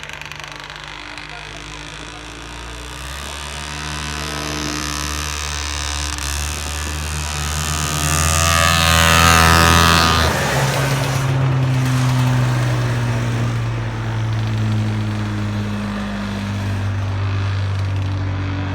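Two-stroke Sachs 297 engine of a 1969 Arctic Cat Panther snowmobile running under way. Its note climbs in pitch and loudness to a peak about nine to ten seconds in, then drops in pitch and eases off.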